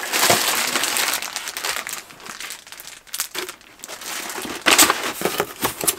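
Brown packing paper crumpling and crinkling as it is pulled out of a cardboard shipping box, loud in the first two seconds, quieter in the middle, then sharp crackles again near the end.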